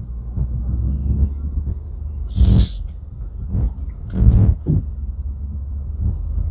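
Steady low rumble of a car engine idling in slow traffic. Over it come a few short, breathy snorts from horses close by, the loudest about two and a half seconds in and another just after four seconds.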